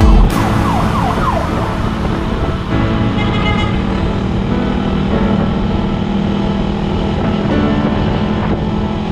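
Background music in a passage of held, sustained notes without a drum beat, with a few short pitch glides in the first second or two.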